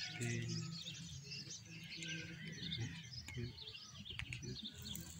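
Birds chirping and twittering, many short overlapping calls.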